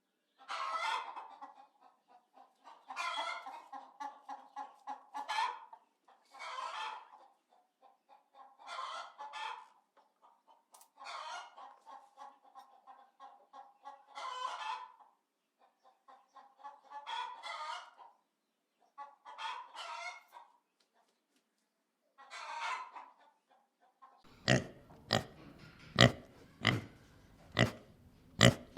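Chicken clucking in repeated bouts of rapid clucks with short pauses between them. About 24 seconds in this gives way to louder, sharper pig grunts.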